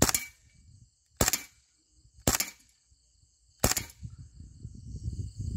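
KWA Kriss Vector gas-blowback airsoft SMG firing single shots on green gas: four sharp cracks of the shot and cycling bolt, spaced unevenly about a second apart.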